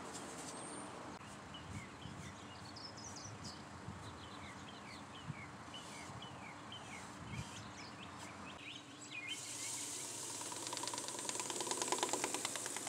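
Wild birds chirping over and over, short quick calls. After about nine seconds a steady hiss comes in. Over the last two seconds a rapid, even scratchy rubbing grows louder as abrasive polishing paste is worked onto a wooden bowl by hand.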